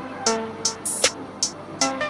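Background music with a steady beat and pitched melodic notes.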